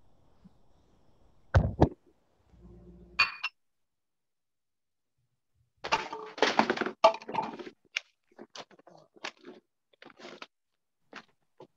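Handling noise over a video-call microphone: a sharp thump, a brief crackle, then the audio cuts out entirely for about two seconds. A burst of knocking and clatter follows, trailing off into scattered clicks.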